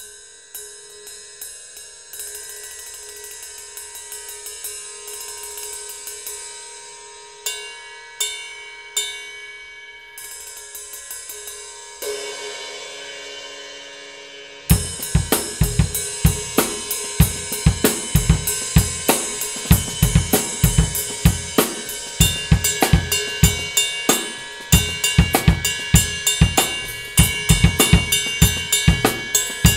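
A Zildjian S Rock Ride 20-inch B12 bronze ride cymbal played with a drumstick: a steady ride pattern with a long, building wash, then a few louder single strikes. About halfway through, a full drum kit groove comes in, with bass drum and snare under the ride.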